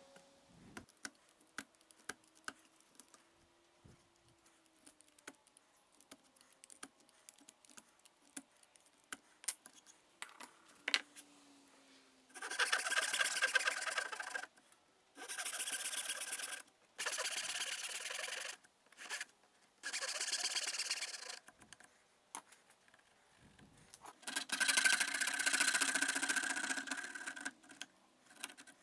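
Hand-sawing dovetails in a thin board: light scattered clicks and taps while the joint is marked out with a knife, then a fine handsaw cutting in four spells of about two seconds each. Near the end a coping saw saws out the waste in a longer spell.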